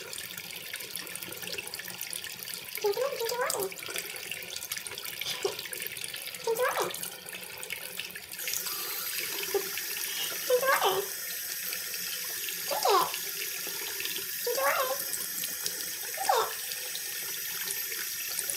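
Bathroom faucet running steadily, a thin stream splashing into a sink basin. About eight short vocal sounds rise and fall in pitch over the water at intervals of a second or two.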